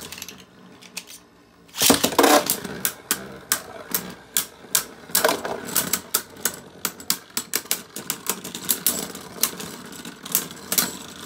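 Two Beyblade spinning tops clashing in a plastic stadium: a loud hit about two seconds in, then rapid, irregular clacks as the tops knock into each other and the stadium wall.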